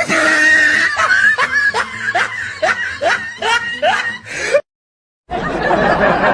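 Laughing sound effect: a run of short "ha" bursts, each rising in pitch, about two a second. It cuts off abruptly about four and a half seconds in, and after a short silence another laugh starts near the end.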